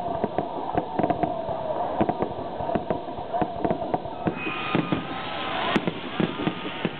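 Fireworks display: a rapid, irregular run of bangs and pops, with a denser hissing crackle setting in about two-thirds of the way through.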